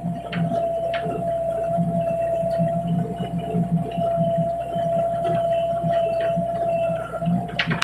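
Excavator running while pressing bamboo piles: a steady high whine held over a low throbbing, with a few short knocks, a cluster of them near the end.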